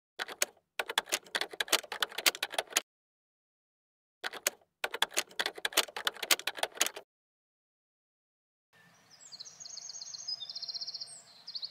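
A typing sound effect: two runs of rapid key clicks, with a pause between them. After a short silence near the end, outdoor ambience with small birds chirping.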